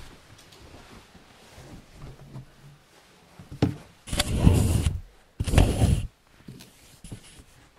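Handling noise near the microphone: a sharp click, then two loud bursts of noise, each about a second long and half a second apart.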